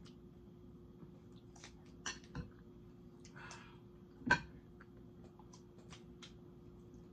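Close-up eating sounds: chewing with scattered wet mouth clicks and smacks, the sharpest about four seconds in, over a faint steady hum.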